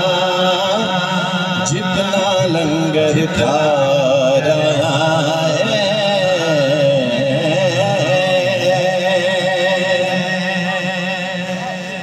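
Male voices chanting the backing melody of a naat through a PA: long wavering held notes over a steady low drone, fading toward the end.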